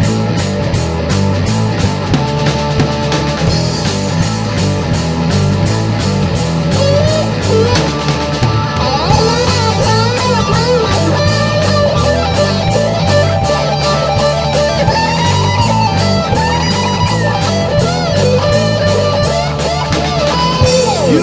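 A rock band plays an instrumental break: guitars over bass and a steady drum beat. About seven seconds in, a lead guitar line of bending notes comes in over them.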